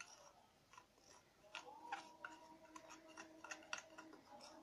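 Faint light clicks and scrapes of a spoon against a bowl as flour is tipped and scraped out of it, with a faint steady hum underneath from about one and a half seconds in.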